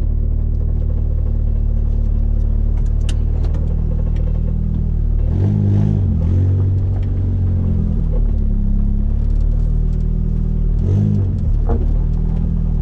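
Car engine through an ISR Performance Series II EP single-tip blast pipe exhaust, heard from inside the cabin while driving: a steady, loud drone whose pitch shifts twice, about five seconds in and again near eleven seconds, as the revs change.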